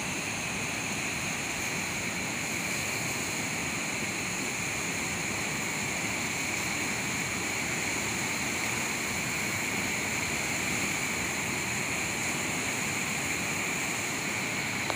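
Fast, turbulent canal water rushing past a stepped embankment, a steady, unbroken rushing noise.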